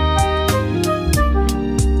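Background music with a steady beat, deep bass and sustained melodic notes.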